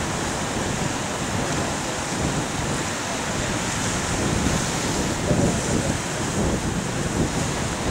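Wind buffeting the microphone over the steady wash of ocean surf, with gusts growing stronger in the second half.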